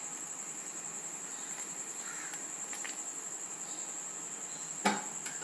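Crickets trilling steadily, a high-pitched continuous trill. One sharp knock near the end.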